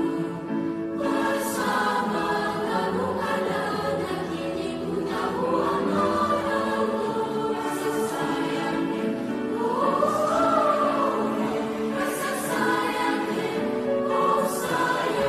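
Mixed youth choir singing in several parts. About ten seconds in, an upper line swells up in pitch and falls back down.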